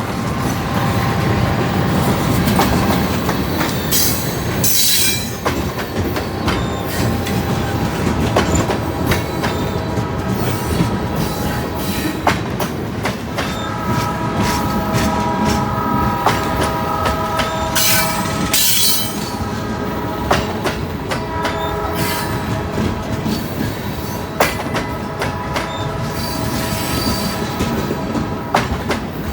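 Heavy loaded freight train of hopper and gondola cars rolling past while it climbs a steep grade. A steady rumble carries wheels clicking over the rail, and a squeal of several steady high tones comes in about halfway through and returns more faintly near the end.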